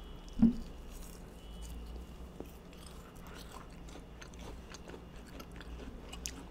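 Chewing and small wet mouth sounds of people eating Indian sweets, with a brief hum about half a second in.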